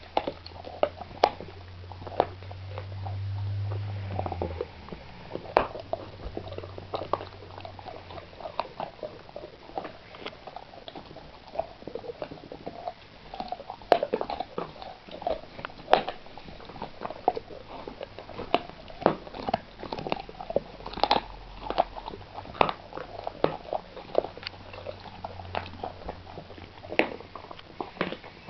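Dog gnawing on a raw pork bone: irregular sharp cracks and clicks of teeth on bone.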